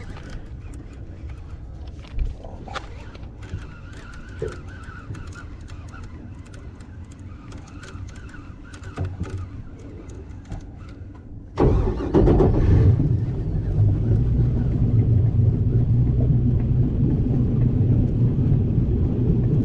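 A boat engine starts about halfway through with a sudden jump in loudness, then runs steadily with a low rumble. Before that there are only faint ticks and handling knocks from the rod and reel.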